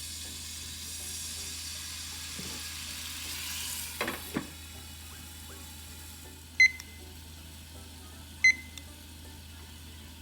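Soufflé pancakes sizzling in a frying pan, a steady hiss that drops after about four seconds, just after two soft clicks. Later come two short, sharp high pings about two seconds apart.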